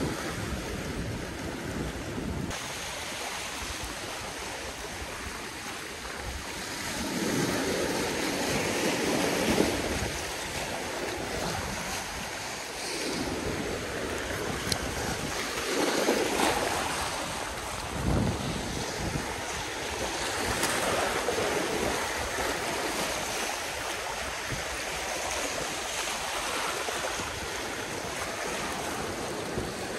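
Small waves washing and foaming over shoreline rocks in shallow water, the wash swelling louder every few seconds, with wind buffeting the microphone.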